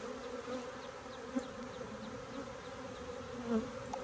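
A disturbed honeybee colony buzzing: a dense, steady, wavering hum of many bees in flight, with a single bee passing close and louder about three and a half seconds in. The bees have erupted from their comb after their home was torn open.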